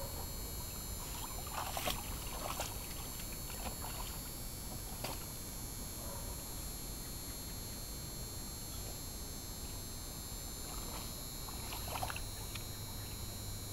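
Water sloshing and splashing in a plastic kiddie pool as a dog steps and paws about in it, with a few sharper splashes about two seconds in and again near the end.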